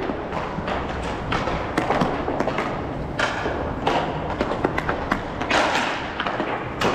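Roller hockey play: irregular knocks and clacks of sticks and puck over the rolling of inline skate wheels on the rink floor.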